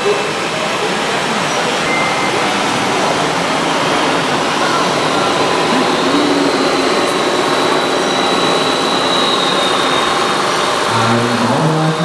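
Steady, loud hall noise with the running engine sound of a radio-controlled Mercedes Arocs 6x6 model dump truck as it drives. A deeper engine drone comes in near the end.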